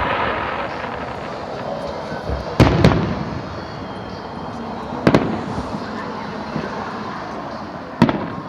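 Aerial fireworks bursting: sharp bangs about two and a half seconds in (two in quick succession), again near the five-second mark and near the end, with crackling and echoing rumble between the shells.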